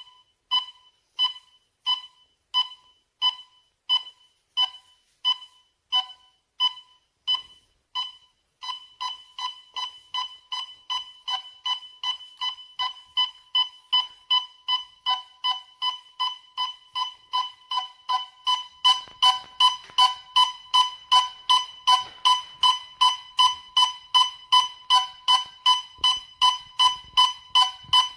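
Gas detector's electronic alarm beeping, the warning it gives when it senses gas. At first about one and a half beeps a second; from about eight seconds in the beeping turns twice as fast, and it gets louder from about nineteen seconds in.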